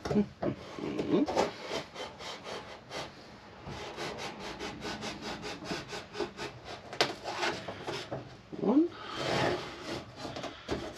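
A thin luan plywood panel being pried up off its staples with a flat tool: scraping and rubbing of metal against wood, with knocks. About four seconds in there is a quick run of rasping strokes, several a second, and near the end a short rising squeak.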